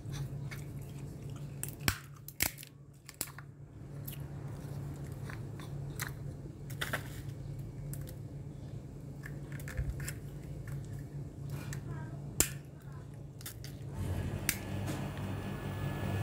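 Walnut shells cracking in a wooden screw-type nutcracker turned by hand: a few sharp cracks several seconds apart, with lighter crackling as shell pieces are picked apart, over a steady low hum. A louder background noise comes up near the end.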